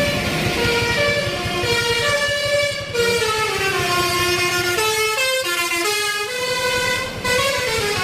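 Bus 'telolet' horn, a multi-tone musical air horn, playing a tune of short stepped notes, with a falling run about five seconds in. The vehicle's engine is running underneath.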